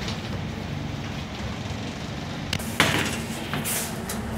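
Scania N94UB single-deck bus heard from inside the saloon while under way: a steady engine hum and road noise, with sharp knocks and rattles from the bodywork and fittings, the loudest about three seconds in.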